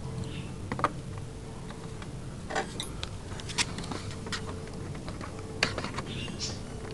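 Sporadic light clicks and taps, about half a dozen, from a small metal rod being handled against the model aircraft's metal fittings, over a faint steady hum.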